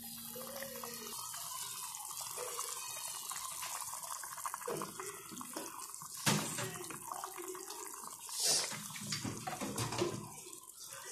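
Water running from a kitchen tap, a steady splashing hiss. Two louder bursts come through it, a sharp knock about six seconds in and a splash about two seconds later.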